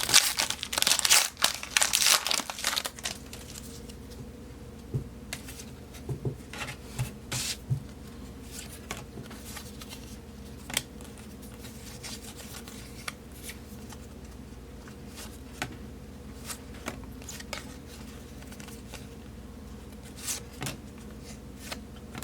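A trading-card pack's wrapper crinkling and tearing open for the first few seconds, then the cards being handled and flipped through, with soft scattered clicks and rustles.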